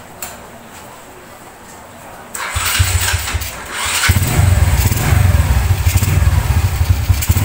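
Motorstar Star Idol motorcycle engine started about two and a half seconds in, catching and then running louder with a fast, even pulse from about four seconds in. It is being run to hear whether the slapping of its loose timing chain has been cured by a newly replaced chain tensioner.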